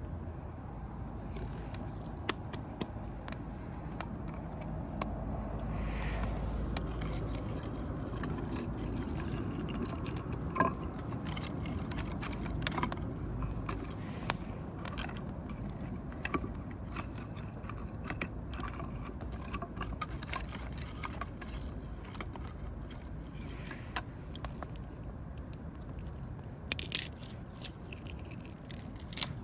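Wood campfire crackling, with frequent sharp pops and snaps over a low rushing hiss; a quick run of louder pops comes near the end.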